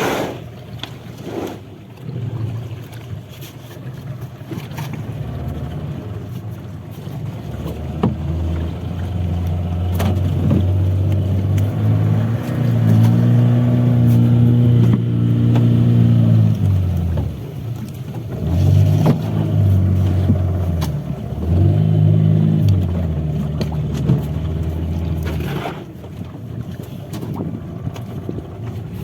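An engine running, revving up several times and dropping back, with a few sharp knocks.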